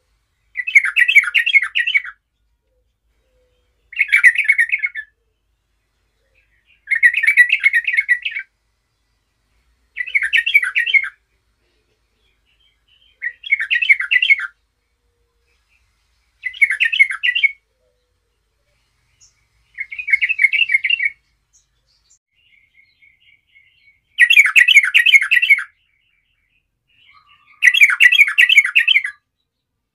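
Yellow-vented bulbul singing short, rapid bubbling phrases, about one every three seconds, nine in all.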